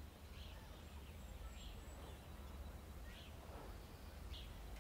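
Faint outdoor ambience: a steady low rumble with small bird chirps repeating about every second and a half.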